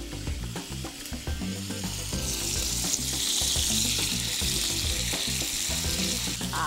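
Oil sizzling in a wok around a pan-fried yellow croaker as cubes of tofu are laid in by hand. The sizzle swells about two seconds in and stays strong.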